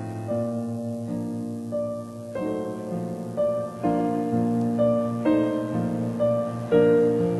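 Slow, soft piano music: sustained notes and chords, with a new note or chord entering every half second or so.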